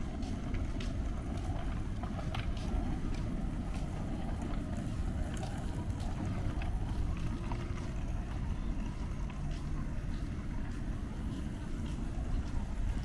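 Outdoor ambience: a steady low rumble with faint distant voices and scattered light clicks.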